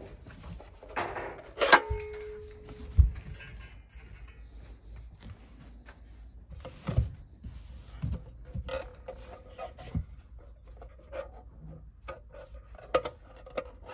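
Handling noise from a double-DIN car head unit's steel case and its metal side brackets: a sharp metal clink with a brief ring about two seconds in, then scattered soft knocks and clicks as the unit is turned over and a bracket is fitted.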